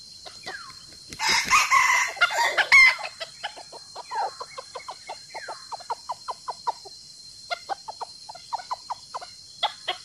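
Chickens calling: a rooster crows once, about a second in, lasting under two seconds, then a long run of short, quick clucks follows. A steady high hiss runs underneath.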